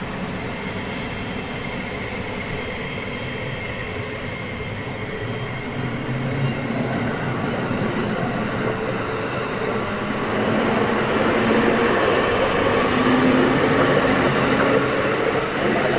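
JR Hokkaido 721 series 3000-subseries electric train, refurbished with a Hitachi IGBT-VVVF inverter, pulling away and accelerating. Its traction motors and wheels grow louder from about six seconds in, and a whine climbs in pitch over the second half.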